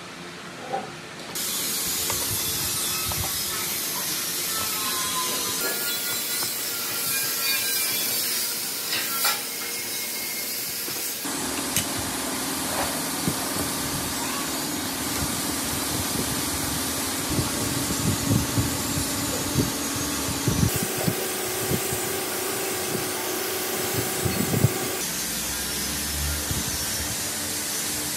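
Hand work on small parts: rustling as white insulation wool is packed into a small metal housing, then scattered light knocks and clicks as the metal housing and a small brass-fitted pump are set down and fitted on a steel tread-plate bench. A steady hiss runs under it all.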